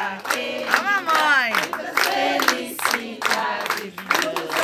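A group of party guests cheering, whooping and chanting indistinctly over rhythmic hand clapping, between verses of the Brazilian birthday song.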